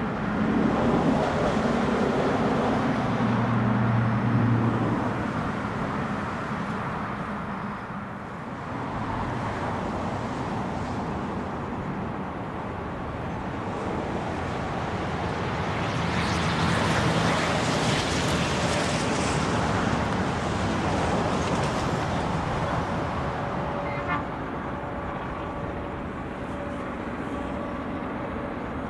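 Rumble of a diesel-hauled passenger train moving away, with low engine tones that fade after about five seconds. Wind on the microphone then rises and falls over the faint sound of a diesel freight train approaching in the distance.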